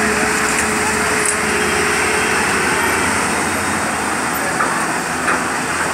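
Heavy truck driving through floodwater on a road: its engine running under a steady rush and splash of water thrown up by the wheels.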